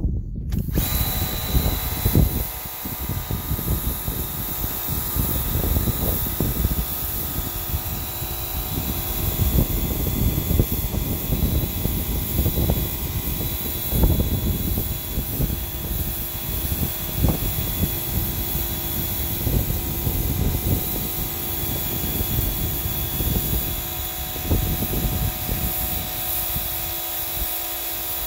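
Pressure washer running steadily, its jet spraying grime off a weathered wooden boarding step, with the engine-like drone of the machine under the hiss of the spray.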